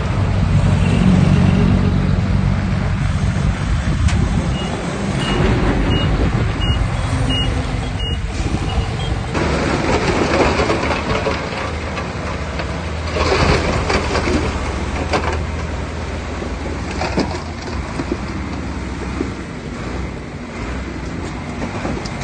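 Heavy-equipment diesel engines running steadily, with a reversing alarm beeping about six times in an even rhythm a few seconds in, while a truck backs up.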